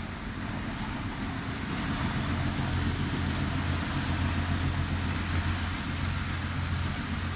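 Steady low drone of motorboat engines on the canal, over an even wash of water and background noise.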